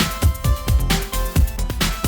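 Electronic background music with a steady driving beat: a kick drum on about every half second under synth notes.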